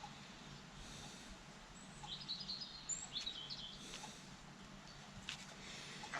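A small bird chirping faintly: a quick run of high, rising and falling chirps about two seconds in, lasting about two seconds. A couple of faint clicks follow near the end.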